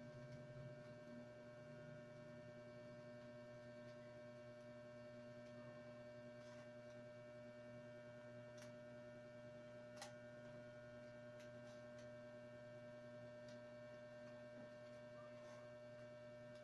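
Near silence: a steady electrical hum, with a few faint, scattered clicks of wicker strands being woven into the basket's rim, the clearest about ten seconds in.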